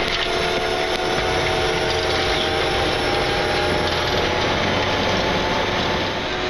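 Steady flight-deck noise of an airliner on the runway: engine noise and rushing air, with a few steady whining tones running through it.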